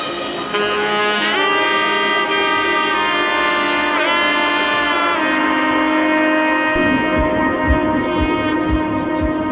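Background music: held melodic notes that bend in pitch over sustained chords, with a low beat coming in about two-thirds of the way through.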